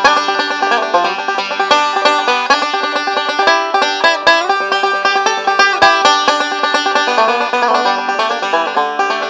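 Mahogany Huber Workhorse five-string resonator banjo played solo, a quick, unbroken stream of picked notes. No voice over it.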